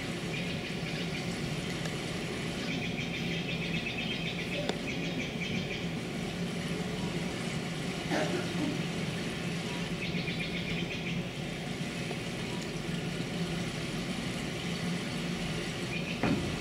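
Steady room noise with a low hum, and a few faint small sounds.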